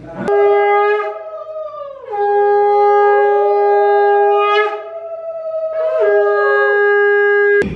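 Conch shell (shankh) blown in three long, steady blasts: a short one at the start, then two long ones with a short break between. A second, wavering tone runs alongside the later blasts.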